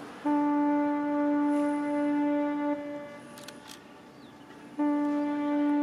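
Ship's whistle sounding long farewell blasts: one steady blast of about two and a half seconds, then after a pause of about two seconds a second blast starts near the end.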